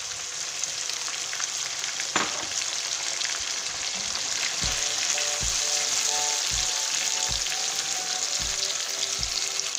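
Chicken pieces and freshly added chopped tomatoes sizzling in hot oil in a nonstick karahi, a steady hiss. A plastic slotted spoon stirs the pan near the end.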